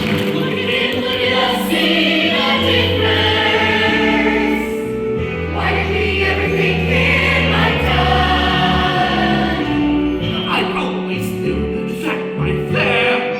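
Stage musical's cast singing together as a chorus over instrumental accompaniment, with long held bass notes under the shifting voices.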